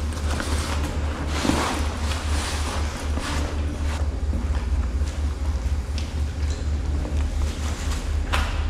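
Rustling and bumping of a large backpack and clothing as the pack is hoisted onto the back and adjusted, in several short bursts, over a steady low rumble.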